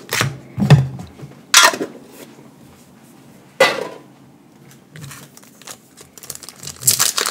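Small metal mini tins knocking and clinking as they are handled and set down on a desk, with a few sharp knocks in the first four seconds and lighter ones after. Foil booster pack wrappers start crinkling near the end.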